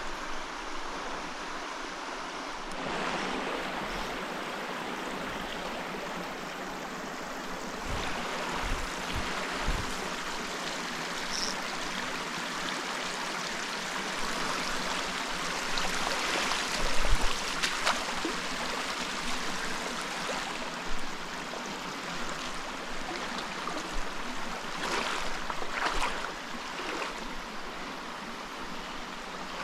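Small mountain stream running over rock: a steady rush of water, with a few short dull knocks, the loudest about seventeen seconds in.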